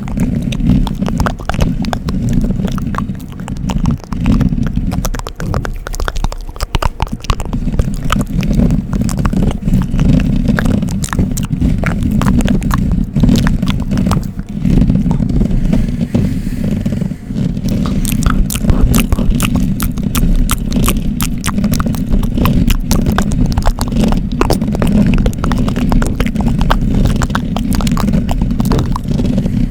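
Close-miked ASMR scratching on the microphone: a dense, rapid crackle of scrapes and clicks over a heavy low rumble, with a few short lulls about five seconds in.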